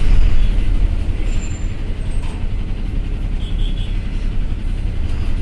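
Ashok Leyland GSRTC bus engine and drivetrain running, a steady low rumble heard inside the driver's cab as the bus moves slowly in traffic.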